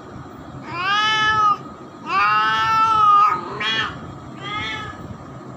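A domestic cat meowing four times: two long, loud meows, then a short one and a fainter one.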